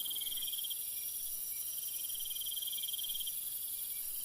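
Crickets chirping in a steady high pulsing trill, coming in runs of about a second with short breaks between them.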